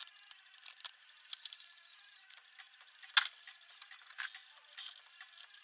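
Scattered light metallic clicks and clinks of small metal objects being handled, with the sharpest click a little past the middle.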